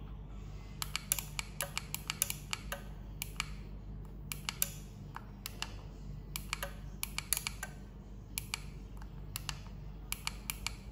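Push-button keys on the front panel of a Selec PIC152 digital panel meter clicking as they are pressed in quick irregular runs, stepping the display digits to enter a scaling value. A steady low hum runs underneath.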